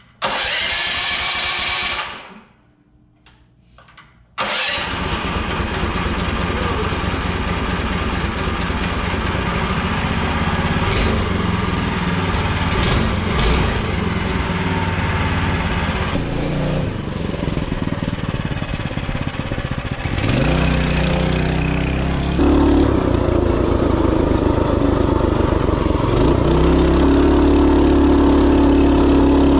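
Tillotson 212E 212cc single-cylinder engine on a minibike being electric-started with the choke on. A short burst of cranking is followed by a pause, then the engine catches about four seconds in and runs steadily. Later the engine revs up twice, rising in pitch as the minibike accelerates on the road.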